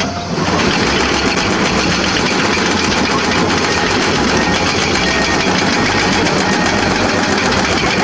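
Excavator-mounted hydraulic rock breaker hammering on rock with a rapid, continuous beat, over the running diesel engines of the excavators.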